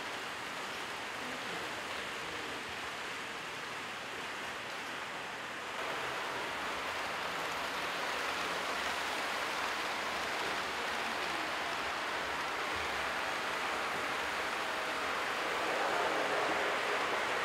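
Steady rushing background noise with no clear individual events. It steps up a little about six seconds in.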